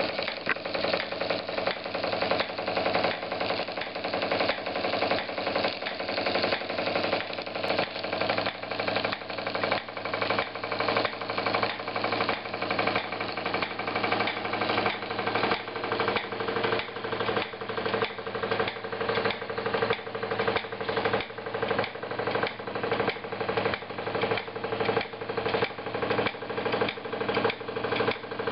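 Wilesco D16 toy steam engine running and driving belt-driven model workshop machines: a steady, rhythmic mechanical clatter of about two beats a second over a constant whirr.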